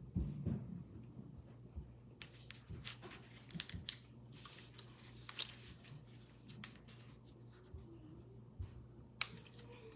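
Quiet scattered rustling and sharp light clicks of small objects being handled, mostly in the first half, with a few low thumps at the start and a low steady hum underneath.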